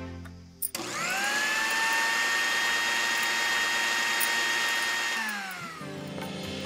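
Tiny electric blender running: its motor whines quickly up to speed, runs steadily for about four seconds, then winds down with a falling pitch.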